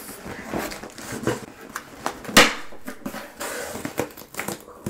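Packaging being handled close to the microphone: crinkling and crackling with many small clicks, and one sharper crackle about two and a half seconds in.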